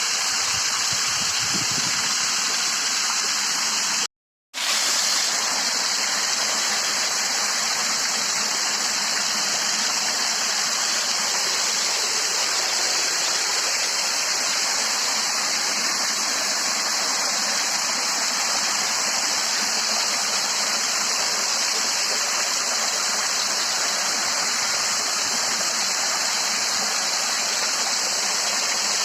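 Steady rush of water from a hillside waterfall and stream swollen by the rains. It cuts out for a moment about four seconds in.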